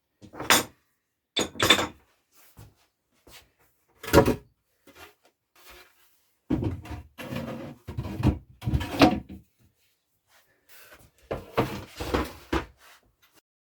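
Things being put away into old particle-board kitchen cupboards: knocks, thuds and clatter as items are set on the shelves and the cupboards are handled. The sounds come in several separate bursts, with a longer busy stretch in the middle.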